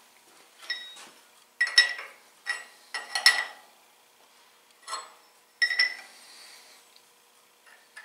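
Light metallic taps and clinks, about seven in the first six seconds, several with a short bright ring. The steel V-block and its clamps on a milling machine table are being nudged and adjusted by hand while the block is aligned with a dial test indicator.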